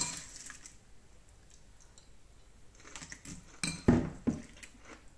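Metal spoon clinking against a bowl of cornflakes and milk as a spoonful is scooped up: one sharp clink at the start, then a cluster of clinks and knocks a little under four seconds in.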